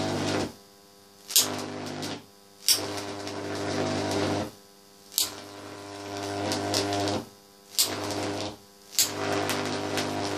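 Loud electrical buzz of a 50 Hz high-voltage arc fed by two series-connected potential transformers with microwave-oven-transformer ballasts. The buzz cuts out five times for under a second, and each time it comes back with a sharp crack as the arc re-strikes.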